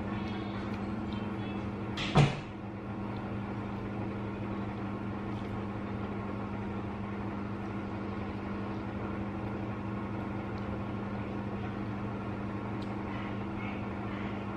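Steady hum of a household appliance motor, with one sharp knock about two seconds in.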